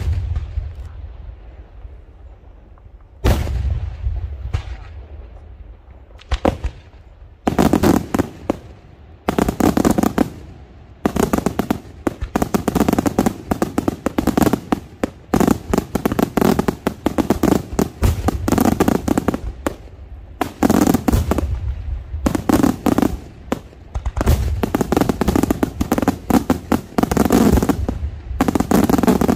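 Daytime aerial fireworks: the echo of a shell burst rolls away, a single sharp bang goes off about three seconds in, then from about seven seconds on, dense strings of rapid bangs and crackling follow one another almost without a break.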